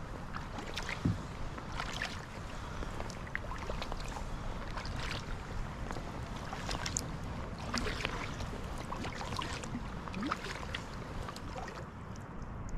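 Kayak paddle strokes on calm water: the blades dip and pull on alternate sides, with splashes and drips every second or two over a low steady rumble.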